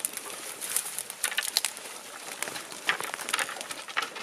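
Footsteps pushing through brush on the forest floor: irregular snaps and crackles of twigs and dead leaves, with spruce branches brushing past.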